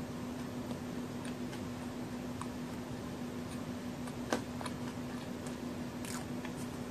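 Quiet closed-mouth chewing of a chocolate-and-raisin cookie: faint soft clicks and mouth sounds, with one sharper click about four seconds in, over a steady low hum.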